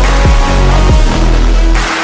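Instrumental stretch of a rap song: an electronic beat with deep bass kicks that drop sharply in pitch, over a sustained low bass, with no vocals.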